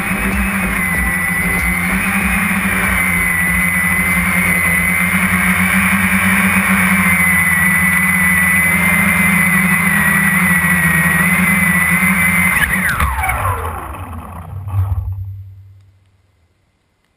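Walkera QR X350 quadcopter's four brushless motors and propellers whining steadily in flight, the pitch wavering slightly with throttle. About thirteen seconds in the motors cut and the whine falls away in pitch, with a short thump as the drone comes down on the ground before it goes quiet.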